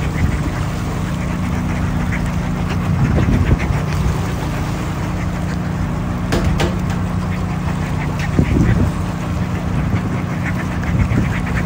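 Boat engine idling with a steady hum, with a few short calls from seabirds sitting on the water around the boat.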